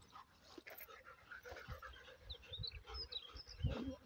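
German Shepherd dogs panting in irregular breathy puffs while locked in a mating tie, the loudest puff near the end. Small birds chirp faintly in the background.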